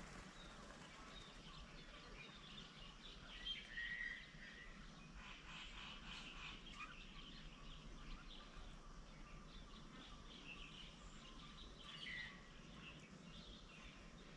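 Faint birds calling and chirping over a quiet background hiss, with two clearer short calls, one about four seconds in and one near the end.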